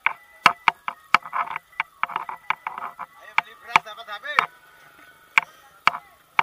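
A series of irregular sharp knocks or clacks, roughly one or two a second, over people's voices.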